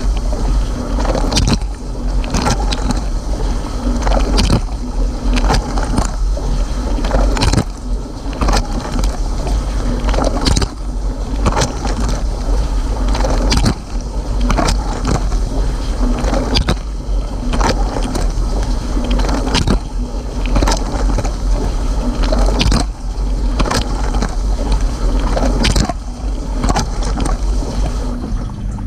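Cylinda dishwasher in its rinse cycle, heard from inside the tub: water spraying and splashing over a steady low hum, with frequent sharp, irregular splats of water striking close by.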